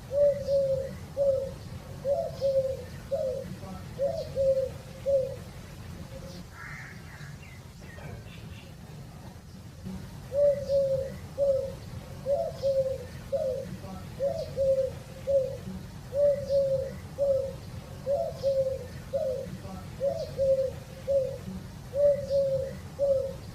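Dove cooing in two long runs of short, quickly repeated low coos, with a pause of about five seconds between them. Faint chirps of small birds sound behind it.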